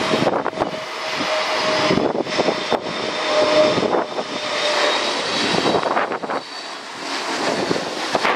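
An Airbus A321neo on its landing approach, its CFM LEAP-1A jet engines giving a steady whine, with strong gusty wind buffeting the microphone.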